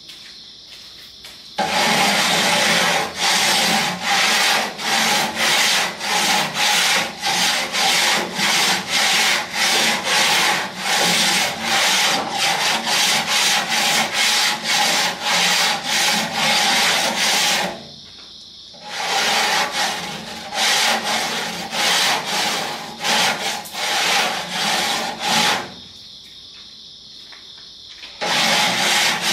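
Metal grates of a cabinet smoker being scrubbed with a long-handled cleaning tool: rough back-and-forth scraping strokes, about two a second, in three long bouts with brief pauses between them.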